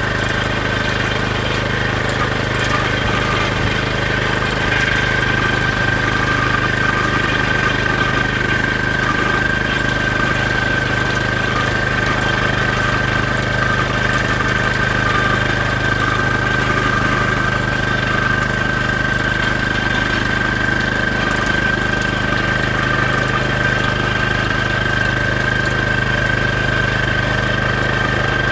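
Steady engine hum of a running vehicle, with a constant high whine over it and no change in speed.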